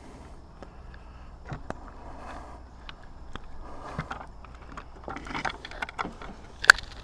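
Hands reinstalling wire connectors on a Minn Kota Terrova's battery meter board: scattered small clicks, taps and rustles of plastic parts and wires, with one sharp click near the end.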